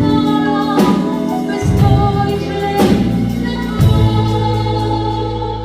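Live pop band playing an instrumental passage: held keyboard chords over bass and drum kit, with a strong drum and cymbal hit about once a second.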